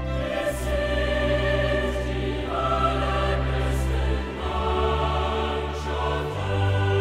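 Slow background music: choir-like voices singing held chords over a sustained bass note, the chord changing about every two seconds.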